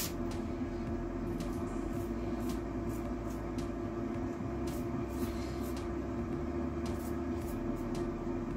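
Steady hum of a Cosori 3.5-litre air fryer's fan and heater running while it preheats, with a few faint clicks as a pastry brush dabs milk onto the pastry.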